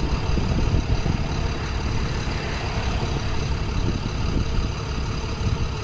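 Engine idling with a steady low rumble.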